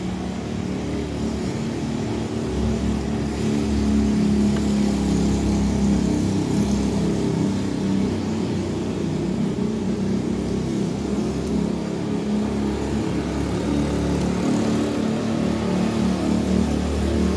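A motor vehicle engine running steadily, a loud low rumble that swells a little about four seconds in.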